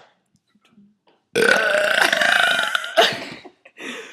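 A person's long, loud burp, starting about a second in and lasting nearly two seconds, ending with a sharp final push.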